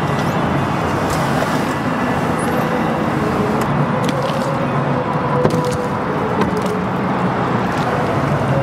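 Steady engine running: a low, even hum under a dense rushing noise, unchanged throughout.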